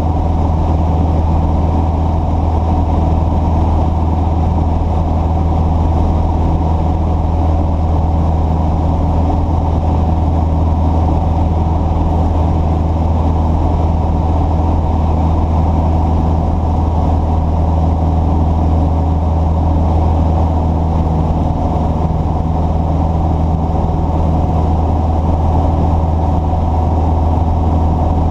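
A steady, low engine drone that holds the same pitch and level throughout.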